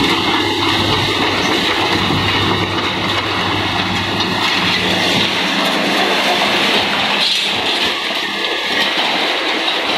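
Caterpillar 320B hydraulic excavator's diesel engine running under load while its grapple drags a steel roof truss, the metal rattling and scraping over rubble. A sharp clank comes about seven seconds in.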